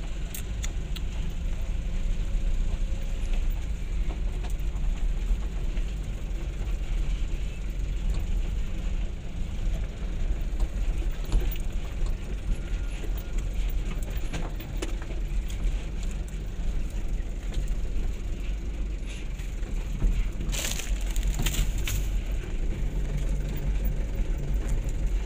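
Truck engine running at idle, a steady low rumble, with a few sharp crackles about twenty seconds in.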